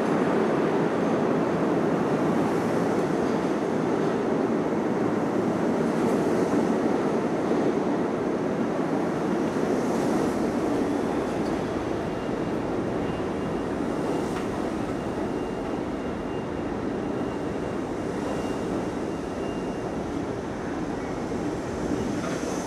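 R32 subway train of stainless-steel cars rolling steadily past along the platform in an underground station, a continuous rumble of wheels on rail that gradually gets quieter, with a faint high whine for several seconds in the middle.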